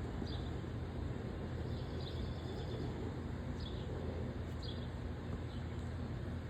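Steady low outdoor background rumble, with about six short, high chirps scattered through it.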